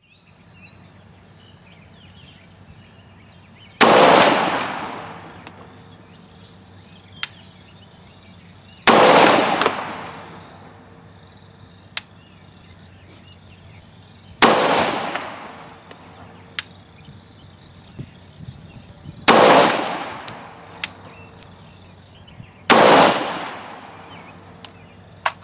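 Five rifle shots from a 20-inch, 1-in-9 twist AR-15 firing 77-grain 5.56 ammunition, about four to five seconds apart, each report trailing off over about a second. Fainter sharp clicks fall between the shots.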